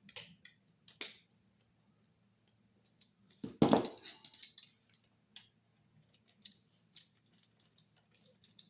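Small clicks and scrapes of a copper wire being worked onto a wall receptacle's terminal screw, with one louder scrape about three and a half seconds in.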